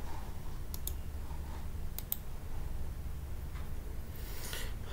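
A few sharp computer mouse clicks, including a quick pair about two seconds in, over a low steady room hum.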